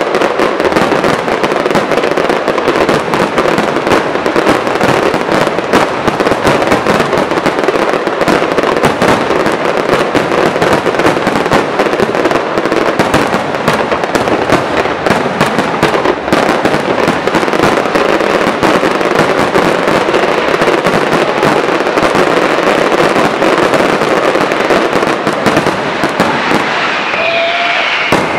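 Aerial fireworks display firing a continuous barrage: shells bursting and dense crackling with no break. Near the end the barrage thins and a few sliding whistling tones sound.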